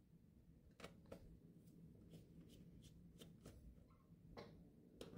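Faint, scattered clicks and ticks of a small screwdriver turning out the screws of an MSI RTX 3070 Ti Ventus graphics card's fan shroud, with fingers handling the card's plastic shroud.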